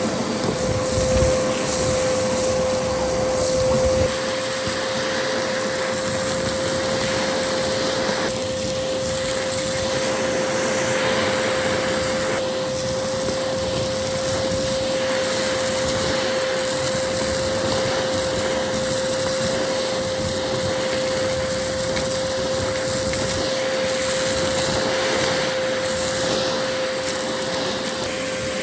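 Dyson DC07 vacuum cleaner running steadily: a constant motor whine over a rush of airflow. The airflow sound shifts a few times in the first dozen seconds, with a heavier low rumble dropping away about four seconds in.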